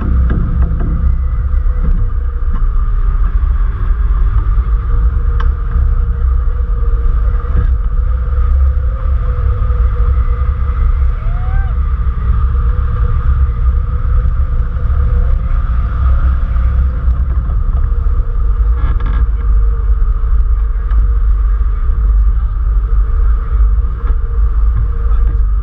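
Wind rushing over the microphone of a camera mounted on a hang glider in flight: a loud, steady low rumble of wind buffeting.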